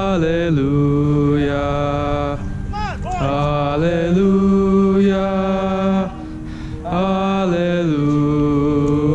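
Marching band ensemble holding long sustained notes, each lasting a second or two and sliding into the next pitch, with a short dip about six seconds in; no drum strokes.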